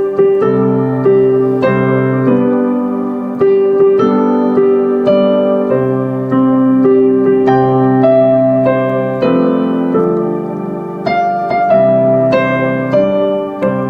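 Background music: a piano or electric piano playing held chords under a slow melody, notes struck about every half second.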